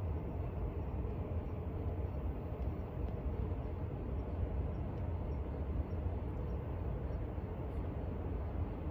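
Steady low rumble of outdoor background noise, with no calls from the kitten.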